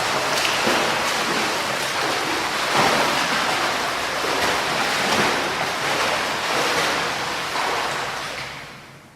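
Water splashing from a person swimming, with uneven surges as the strokes break the surface. It fades out near the end.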